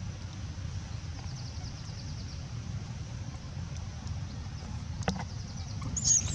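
Steady low rumble, like wind on the microphone, with faint high chirping. Near the end a baby monkey starts shrieking in shrill, broken squeals.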